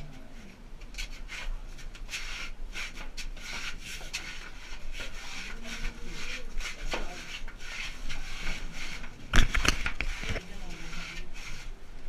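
Rubbing and scraping of a person crawling through a narrow earthen tunnel: clothing and the handheld camera brushing the dirt walls and floor in irregular strokes, with a louder bump about nine and a half seconds in.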